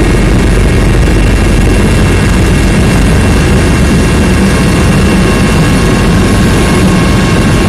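Helicopter engines and rotor heard from inside the cabin during the approach to land: a loud, steady drone with a constant high whine over it.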